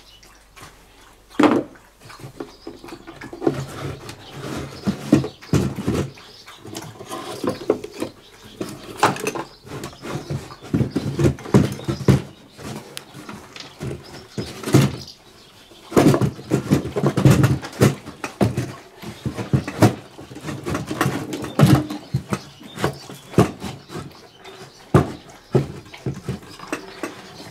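Irregular knocks, clicks and scraping of the old wooden case and its loose parts as the inner chassis is worked and pulled out by hand, with rattles from the components inside.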